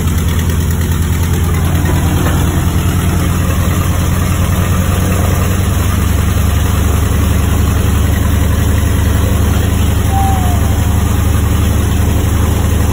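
Freshly overhauled Wright R-2600 radial engine of a B-25 Mitchell running at a steady idle on its first start-up after overhaul, heard loud from inside the cockpit.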